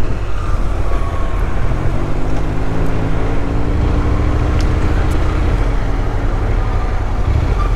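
Riding noise of a Honda NC750X motorcycle under way in city traffic: a steady low rumble of wind and road. About two seconds in, an engine note rises as the bike accelerates, then holds steady.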